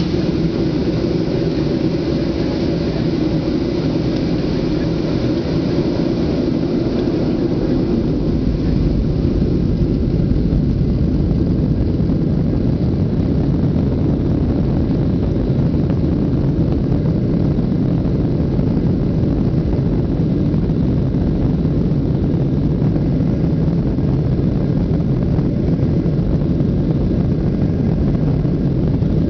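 Steady low rumble of a Boeing 737-700's CFM56 jet engines at taxi power, heard inside the passenger cabin as the airliner taxis, rising a little about eight seconds in.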